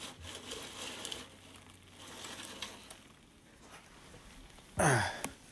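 Dry grass of a bird's nest rustling and crackling as it is pulled by hand from a car's exhaust heat shield, over the first three seconds or so. Near the end comes a short vocal exclamation that slides down in pitch.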